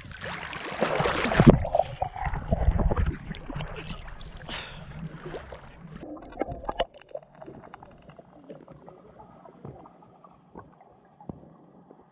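Water splashing and sloshing as a person swims or moves through lake water, loudest in the first second and a half, then dying down to scattered small splashes and clicks after about seven seconds.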